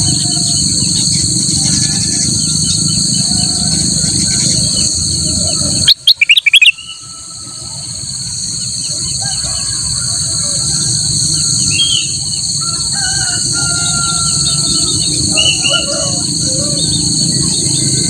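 Kutilang emas bulbul singing, with one very loud, close burst of quick notes about six seconds in and scattered chirps around it. A steady high insect drone runs underneath.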